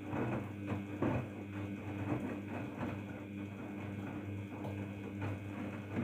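Daewoo DWD-FT1013 front-loading washing machine tumbling a 40 °C quick wash: the drum motor hums steadily while the wet laundry and soapy water slosh and splash irregularly in the turning drum.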